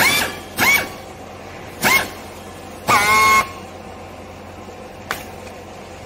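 Four short squeals in quick succession from a hand strapping tool tensioning green plastic strap around a clothing bale, the last one longest, then a single sharp click.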